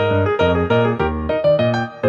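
Background music: a melody of quick, evenly paced notes over a bass line.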